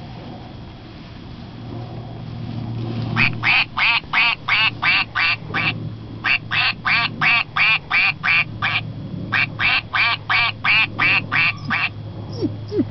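Quacking from a yellow plush toy duck: rapid, even quacks about five a second, in three runs of roughly two and a half seconds each with short pauses between.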